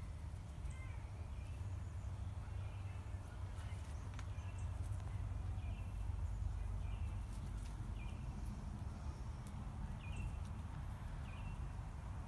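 A bird chirping in short, repeated calls, roughly one a second, over a steady low rumble.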